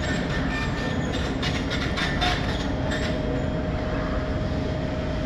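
Railway train noise: a steady rumble with a constant hum, and a run of light clattering clicks between about one and three and a half seconds in.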